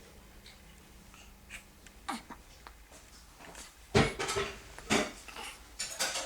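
A newborn baby's short noises after a feed, four of them, the loudest about four seconds in.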